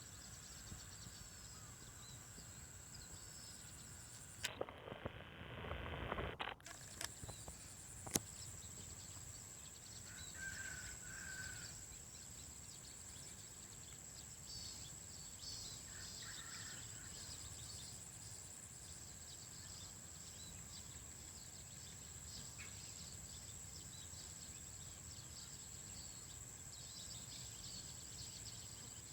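Faint countryside ambience: a steady high-pitched insect drone with scattered small bird chirps. A brief burst of rumbling noise comes about five seconds in, and a single sharp click about eight seconds in.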